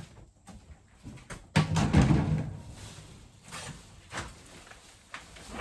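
Old wooden shed door being pushed open: a sudden loud scrape and bump about a second and a half in, fading over about a second, then a few lighter knocks.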